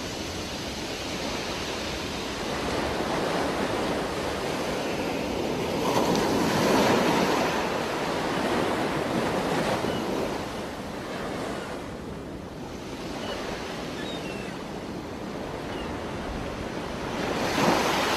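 Muffled underwater rush of scuba diving heard through a camera housing, with two louder swells of bubbling: one about six seconds in and one near the end as a diver exhales through the regulator.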